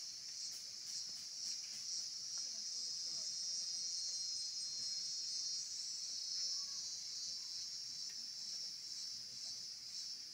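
Chorus of insects buzzing in a high, shrill band, pulsing about twice a second at first, running steady through the middle, then pulsing again near the end.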